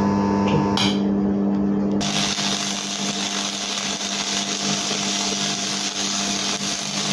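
Stick (MMA) welding arc: after a couple of short crackles as the rod touches the steel, the arc holds from about two seconds in with a steady, loud crackling hiss, over a steady hum.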